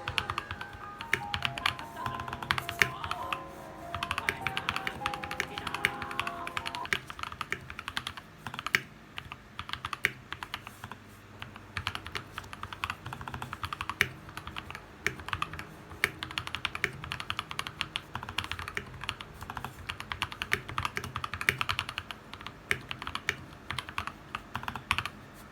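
Typing on an FK84T mechanical keyboard fitted with Akko Bow and Fantasy Virus parts: a fast, uneven run of key clicks and clacks. Music plays under it for the first several seconds.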